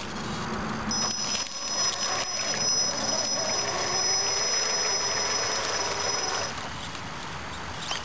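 Electric 1/6th-scale RC monster truck driving into a pond: a steady high-pitched whine from its electric drive under throttle, from about a second in until it cuts off near the end, over the sloshing of its big tires churning through shallow water.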